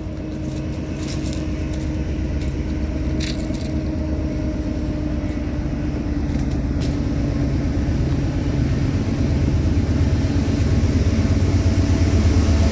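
A train approaching along the track, its low rumble and steady hum growing steadily louder as it nears.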